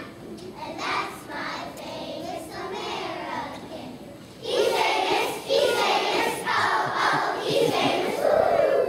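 Children's choir singing together. It starts loud about four and a half seconds in, after a few seconds of quieter children's voices.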